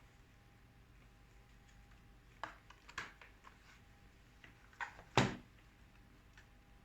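A few short plastic clicks and knocks from hands handling and fitting laptop parts during a keyboard replacement, the loudest a heavier knock about five seconds in.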